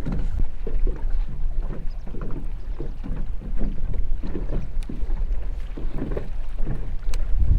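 Wind buffeting the microphone over a steady low rumble, with small waves slapping irregularly against the boat's hull a few times a second.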